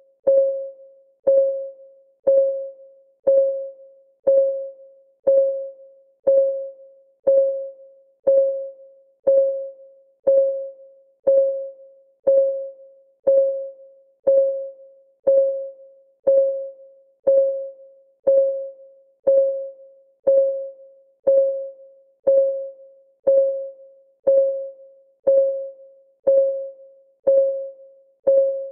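Countdown timer's clock-ticking sound effect: a single pitched tick once a second, steady throughout, each tick ringing briefly and fading before the next.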